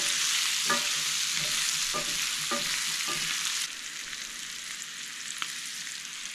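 Cubed kohlrabi sizzling as it sears in a cast-iron skillet, stirred with a wooden spatula and a fork that tick and scrape against the pan a few times. About three and a half seconds in the sizzle drops to a quieter level.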